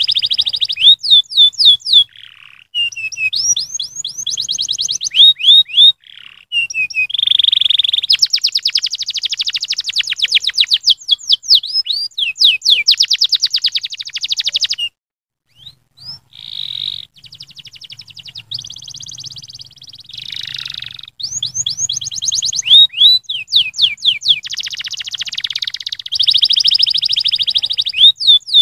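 Domestic canary singing a long song of rapid trills and rolls strung together with quick sweeping notes, breaking off briefly about halfway through before carrying on.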